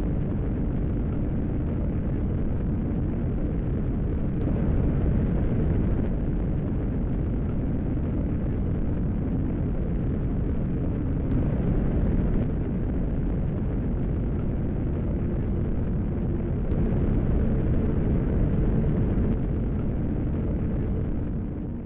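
F-1 rocket engine firing on a static test stand: a continuous, heavy, noisy roar with most of its weight in the low end, dull and muffled in tone. It swells slightly a few times and cuts off abruptly at the end.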